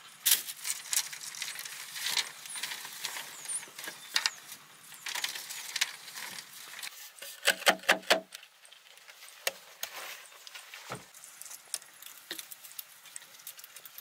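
Scattered knocks, taps and scrapes of bamboo poles being handled and worked against packed earth, with a quick run of four louder knocks a little past halfway.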